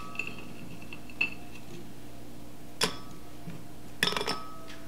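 Chocolate sandwich cookies dropped one at a time into a glass blender jar: a few separate clinks and knocks, the loudest about three seconds in, then a quick cluster of them near the end.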